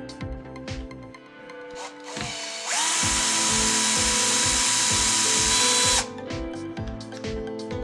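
Bosch cordless drill/driver running at a steady speed for about three seconds, a level motor whine that stops abruptly, after a brief start just before. Background music with a steady beat plays throughout.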